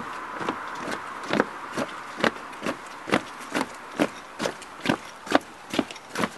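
Footsteps of a group of uniformed firefighters marching off in step across paving, a crisp, even tread of about two steps a second.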